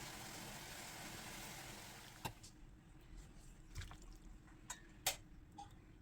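Kitchen tap water running steadily, then shut off with a click a little over two seconds in, followed by a few light scattered clicks and knocks.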